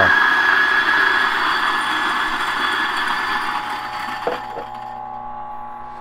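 DF64 Gen 2 flat-burr coffee grinder grinding a single dose of espresso beans, a loud steady grinding with a high whine. About four seconds in the grinding thins and fades as the last beans pass through the burrs, with a couple of clicks, and the motor runs on quietly.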